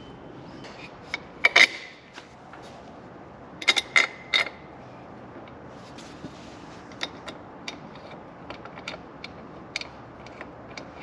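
Metal clicks and clinks as a bolt, spacers and an end link are fitted by hand to the end of a steel sway bar. There are a few louder clinks in the first half, then a run of light, quick ticks as the bolt is turned in with the fingers.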